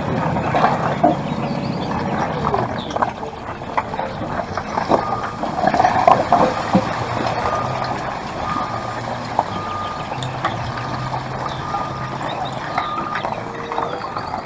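Truck reversing-alarm beeps, short even beeps repeating from about halfway through, over a low engine-like drone. Small clicks and rattles run throughout, as of a plastic toy loader being moved.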